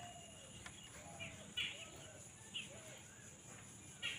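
Faint bird chirps: a few short, scattered calls over a quiet background.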